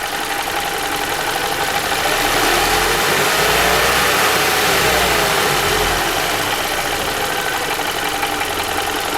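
Toyota Valvematic petrol engine revved up from idle and settling back down, with a knock at idle that the owner is tracking down.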